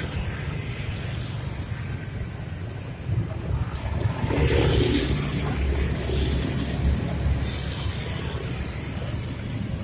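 Steady low rumble of road traffic, with one vehicle passing louder about four to five seconds in.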